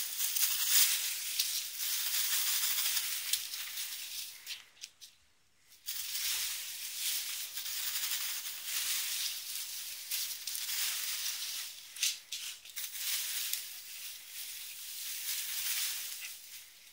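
Boxwood hedge leaves and twigs rustling and shaking as a Lakeland Terrier puppy tugs at and burrows into the shrub. The rustling comes in long spells, with a short pause about five seconds in.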